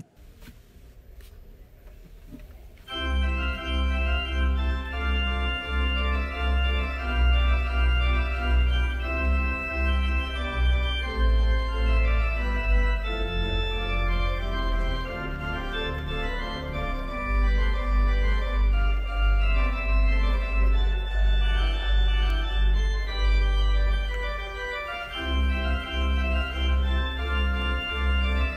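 Organ playing a postlude: sustained chords over a deep held bass line, coming in about three seconds in after a brief quiet moment.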